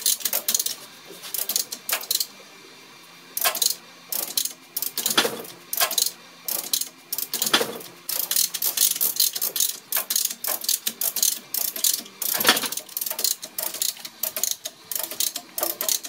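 A come-along lever chain hoist being ratcheted, its pawl clicking in quick runs with a short pause about two seconds in. The hoist is under load, pulling the piston rod out of a hydraulic backhoe boom cylinder.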